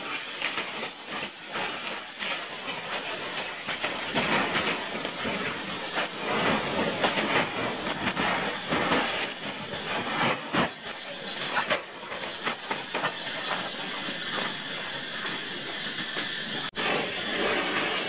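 Dry fallen leaves rustling and crackling as they are scooped up by hand and stuffed into a sack, with irregular bursts of crunching that are loudest in the middle, over the steady rush of a shallow stream.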